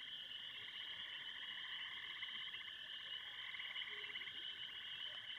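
Faint night chorus of frogs: many rapid trills overlapping into a steady, high-pitched drone.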